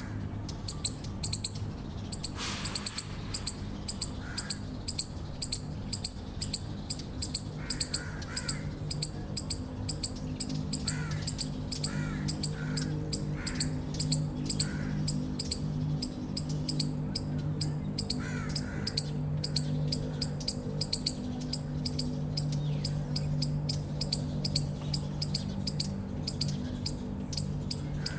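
Eastern chipmunk giving its repeated chip call, sharp high-pitched chips about two to three a second, kept up without a break. Softer bird calls come in now and then.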